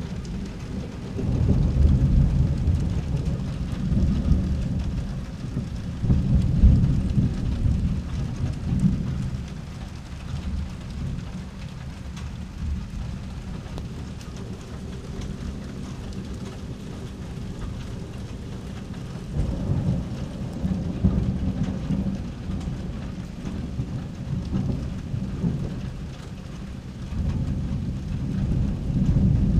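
Steady rain falling, with two long rolls of low thunder. The first rumbles for several seconds near the start and the second builds up a little past halfway and runs on, with a quieter stretch of rain alone between them.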